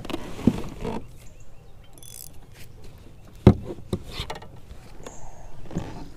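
Gear being handled on a fishing boat's deck: a few knocks and clunks, the loudest about three and a half seconds in, with light rustling between them.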